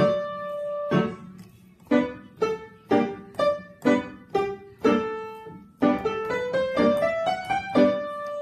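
Yamaha upright piano played from sheet music: separate struck notes and chords, with a quick rising run of notes in the second half that ends on a held note.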